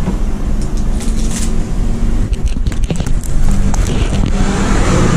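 Steady low rumble of background noise with scattered short clicks.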